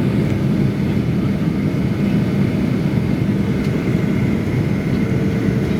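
Steady cabin noise of a Boeing 737-800 descending on approach: an even low drone of its CFM56 engines and airflow, heard from inside the cabin, with a faint thin whine above it.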